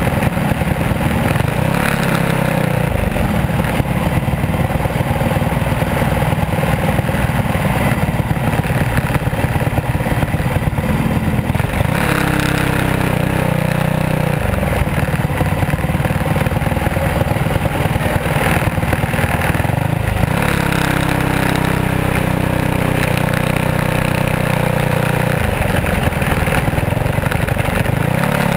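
A racing engine heard loud from the cockpit of a small winged dirt-track race car, running hard at racing speed. Its pitch falls and climbs again several times as the car goes around the track.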